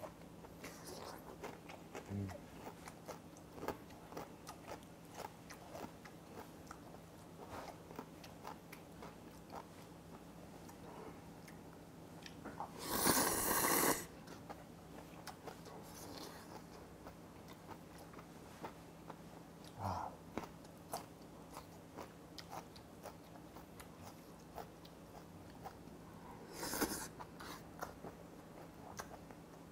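A man eating jjamppong noodle soup: quiet chewing with small mouth clicks throughout, and one loud slurp of noodles lasting about a second midway through, with a shorter slurp near the end.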